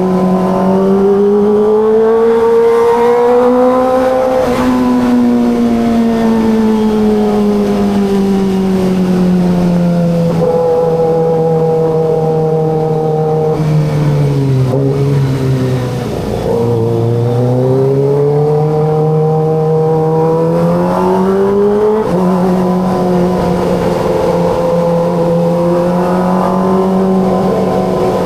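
Kawasaki ZX25RR inline-four engine and exhaust under way in city riding. The engine pitch climbs over the first few seconds, then falls slowly to a low point about midway with a brief dip in loudness, then rises again and holds steady near the end.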